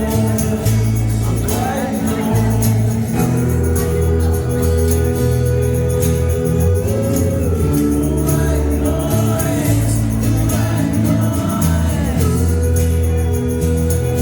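Live acoustic rock music: a sung melody held over acoustic instruments with a steady beat.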